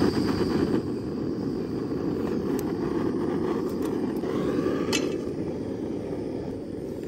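Backpacking canister gas stove burning steadily at full flame, a constant low rushing hiss. About five seconds in there is a light clink as a frying pan is set on the stove's pot supports.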